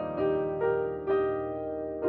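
Slow solo piano music, with a new note struck about every half second over held lower notes.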